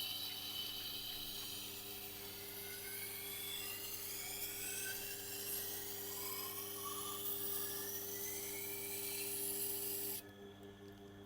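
Steel edge of a Miyabi 5000 FCD chef knife being ground on a Tormek sharpener's turning wheel: a steady gritty hiss with faint gliding whistles as the blade is passed across, raising a burr on the edge. The grinding stops suddenly about ten seconds in, leaving the low hum of the sharpener's motor.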